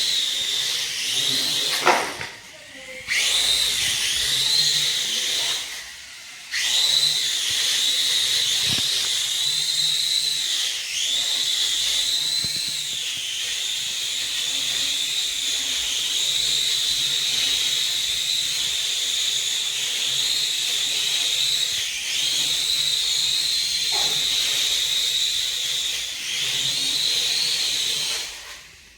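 Small drone's propellers and motors whining at a high pitch, the pitch wavering up and down as the throttle changes. The whine drops out briefly twice in the first seven seconds and dies away near the end.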